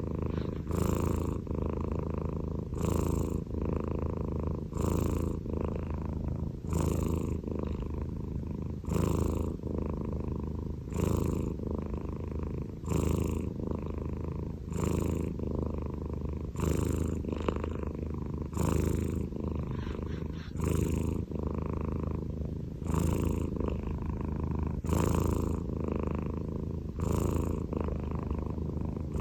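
Scottish Fold cat snoring in its sleep: a steady low rumble that swells with each breath, about one breath every two seconds.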